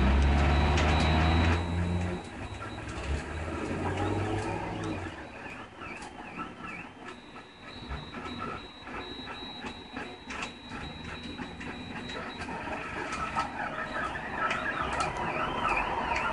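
Ultimaker 3D printer running a print, its stepper motors whining in pitches that rise and fall as the print head moves, with frequent small ticks. A loud low hum fills the first two seconds, then drops away.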